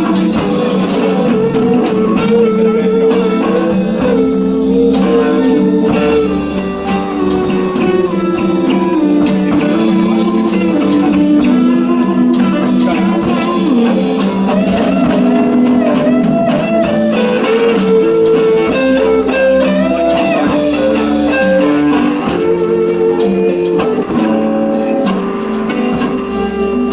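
Background music: an instrumental guitar piece in a bluesy style, with melody notes moving steadily over sustained chords.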